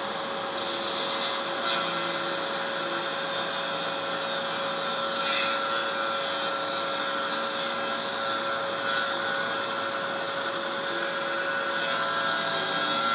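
Festool CSC SYS 50 cordless table saw running steadily, its blade tilted to 45° making a bevel cut through plywood, with a brief louder rasp about five seconds in.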